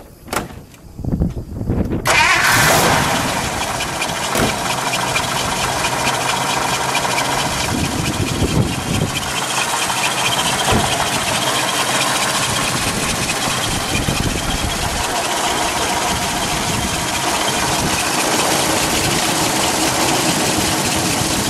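1954 Buick Skylark's 322 cubic-inch Fireball V8 turning over on the starter for about two seconds, then catching with a brief flare of revs and settling into a steady idle.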